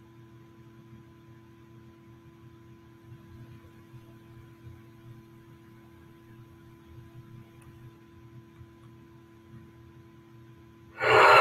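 Faint, steady electrical hum with no other sound.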